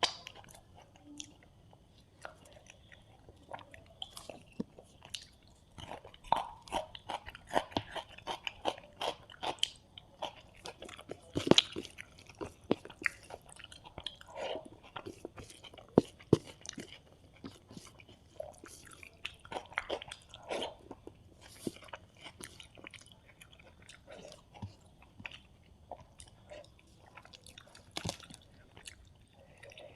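Close-miked eating sounds of a person chewing a meal of rice, fried fish and curry: irregular wet chewing, smacking and crunchy bites. There are busier stretches about a third of the way in and again around two-thirds through, with a few sharp loud clicks.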